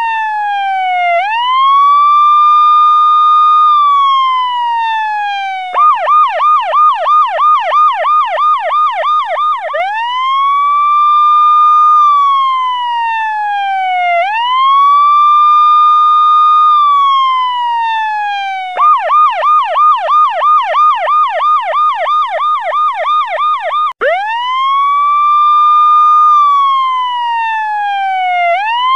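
Electronic police-style siren sounding loud and continuous, a slow wail rising and falling in pitch, switching twice to a fast yelp warble for several seconds before returning to the wail.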